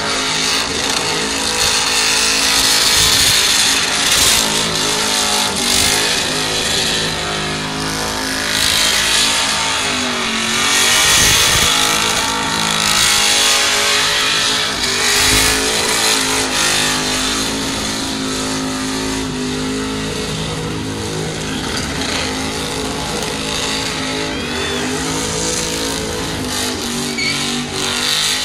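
Small cab-over ute's engine held at high revs in a tyre-smoking burnout, the rear tyres spinning on the track; the revs dip and climb again about ten seconds in.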